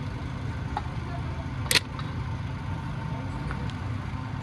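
A steady low engine-like hum, with one sharp click a little under two seconds in.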